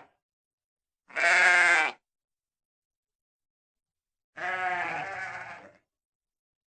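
Sheep bleating twice: a loud call of about a second, then after a pause of a couple of seconds a softer, wavering call of about a second and a half.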